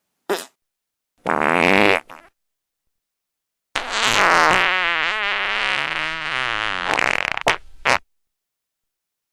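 A series of separate fart sounds with dead silence between them: a short one, then one of under a second, then a long one of about three seconds whose pitch wavers up and down, ending with two quick short ones.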